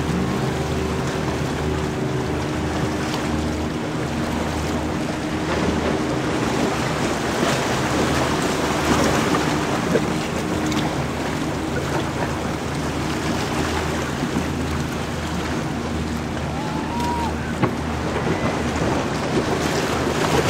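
Motorboat engine running steadily with a low throbbing drone, mixed with water wash and wind buffeting the microphone.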